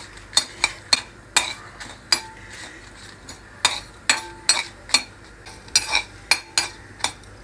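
Steel spoon stirring spices frying in oil in a kadai, clinking and scraping against the pan in irregular strokes, a few ringing briefly.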